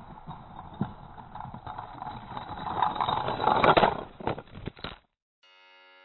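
Muffled outdoor noise with scattered sharp knocks and a rushing noise that swells about three to four seconds in, then cuts off abruptly; after a brief gap, soft sustained electronic keyboard chords begin.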